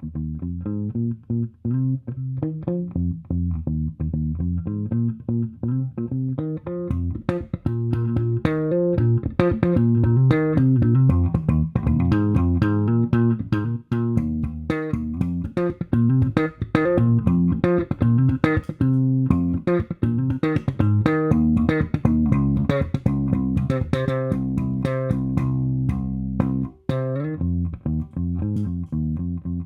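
Fender Jazz Bass American Special played through a Mad Professor Forest Green compressor pedal, a Gallien-Krueger MB-500 amp and Neo 112 cabinet: a continuous run of plucked bass notes. About a quarter of the way in the notes get sharper, brighter attacks, and the playing breaks off briefly near the end.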